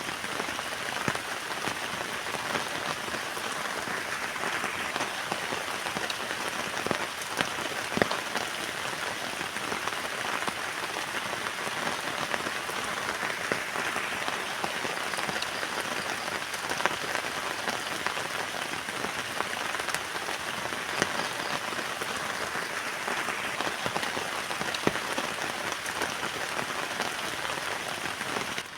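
Heavy rain falling steadily on a tent, a dense even hiss with many sharp individual drop hits scattered through it.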